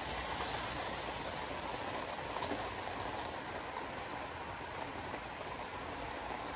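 Steady road noise inside a moving car: tyres hissing on rain-wet pavement, with light rain on the windshield.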